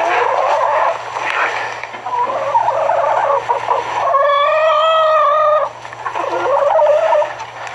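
Chickens squawking in a run of loud, wavering calls, with one long drawn-out call about four seconds in.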